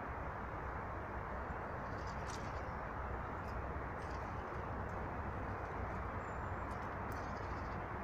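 Steady outdoor rushing background noise with a few faint, brief high bird calls scattered through it.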